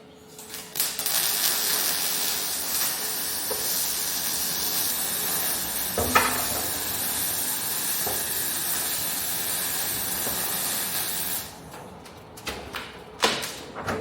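MIG welding arc crackling and hissing steadily for about ten seconds as a bead is run, then cutting off. A few sharp knocks follow near the end.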